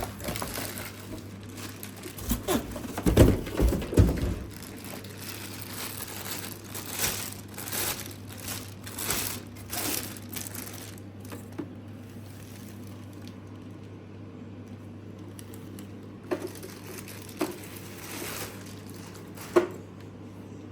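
Plastic and cardboard packaging being handled, crinkling and rustling irregularly, with a few heavier bumps about three to four seconds in.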